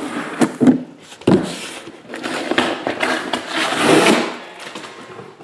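Cardboard case and shrink-wrapped trading card boxes being handled: a few sharp knocks in the first second and a half as boxes are set down, then a longer scraping rustle of cardboard sliding against the boxes.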